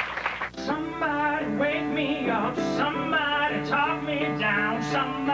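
Applause dies away about half a second in, and a live song begins: a man singing over instrumental accompaniment.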